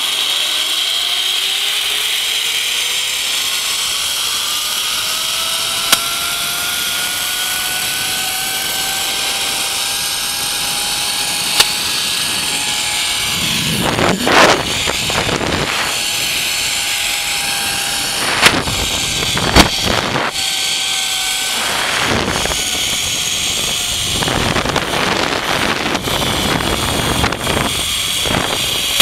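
Zip line trolley pulleys running along the steel cable: a whine that climbs in pitch over the first ten seconds as it gathers speed, then holds steady, over constant rushing wind noise. From about halfway through, several loud bumps and bursts of wind buffeting break in.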